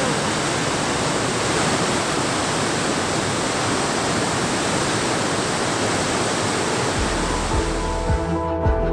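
A waterfall's steady, loud rush of falling water. About seven seconds in, background music with a beat comes in, and the water sound drops away just before the end.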